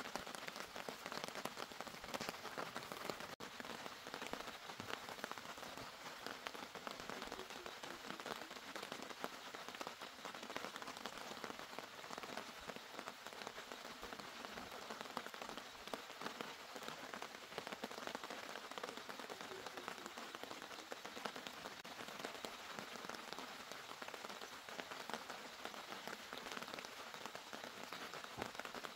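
Steady rain falling: a dense, even patter of drops.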